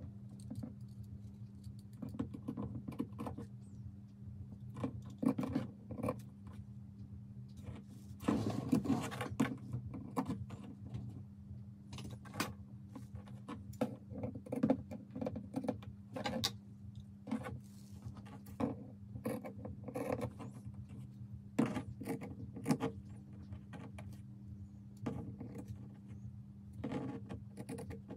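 Large fabric shears snipping through felt, with many short, irregular cuts and the blades clicking, and a busier run of cutting about eight seconds in. A steady low hum runs underneath.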